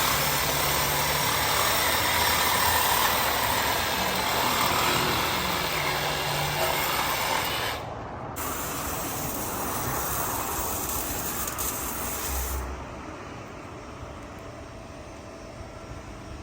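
Car on the move: a steady rush of road and wind noise with a low engine hum underneath. It breaks off briefly about 8 seconds in and drops much quieter from about 12.5 seconds in.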